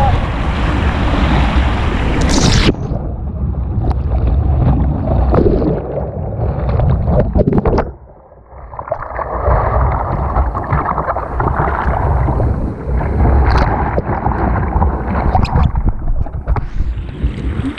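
Rushing, churning white water around a kayak, with a heavy low rumble of water and wind buffeting the deck-mounted camera. The sound turns muffled about three seconds in, drops away briefly around eight seconds in, then the rushing water builds back up.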